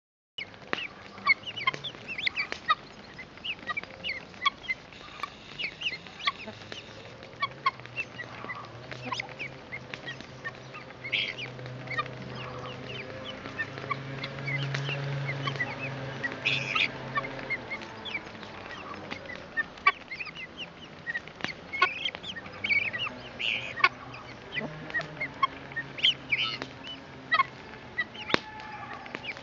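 Young helmeted guineafowl feeding in a flock, giving many short, sharp calls and clicks scattered irregularly throughout.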